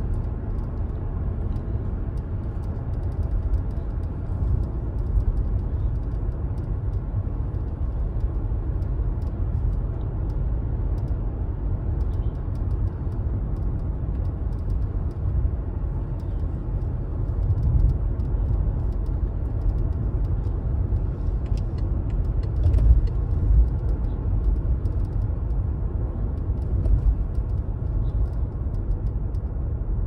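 BMW 760 being driven at speed: steady low rumble of engine and road noise, swelling a little louder now and then.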